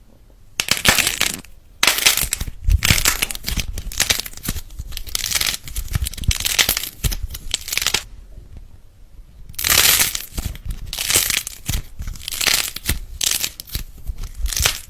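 Slime being squeezed and pressed by hand, giving crackling, crinkly noise in repeated bursts, with a short lull past the middle.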